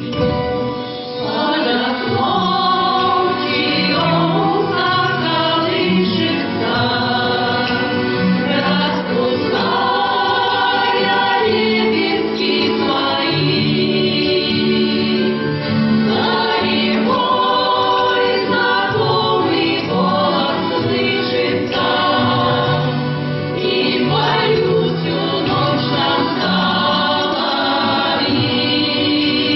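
A choir of folk singers singing a song with instrumental accompaniment.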